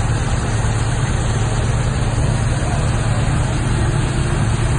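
Vehicle engine idling: a steady low hum under a constant wash of noise.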